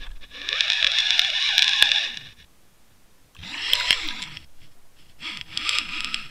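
Water rushing and churning against the housing of an underwater camera being hauled up toward the surface, coming in three surges with near-quiet gaps between them.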